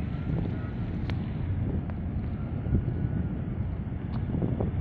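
Wind buffeting the microphone as a steady low rumble, with a faint high whine that comes and goes a few times.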